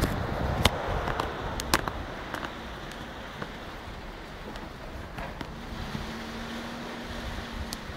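Camera phone handled in the hand, with a few sharp clicks and knocks in the first two seconds, over steady distant traffic noise; a low steady hum sets in about six seconds in.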